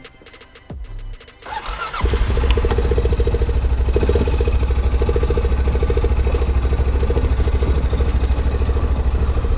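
A Honda ATV's engine being started: quiet for the first second or so, then it cranks and catches about two seconds in and settles into a steady, even idle.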